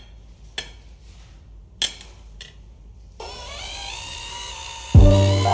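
Knife and cutlery clink on a plate a few times, then from about three seconds in a cordless drill runs steadily on the screws of a snowboard binding. Near the end, music with brass comes in loudly.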